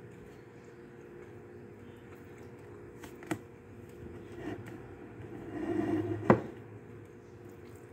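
Tableware sounds while eating: wooden chopsticks and a ceramic noodle bowl give a light click about three seconds in and a sharper knock about six seconds in, just after a short stretch of soft noise. A steady low hum runs underneath.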